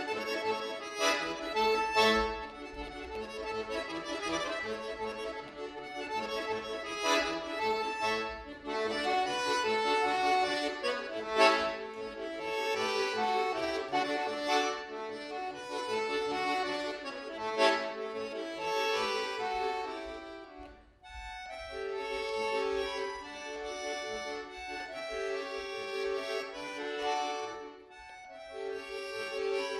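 Solo bayan (Russian chromatic button accordion) playing a fast concert piece, with several sharp accented chords. About two-thirds through it drops off briefly, then goes on in a quieter, steadier passage.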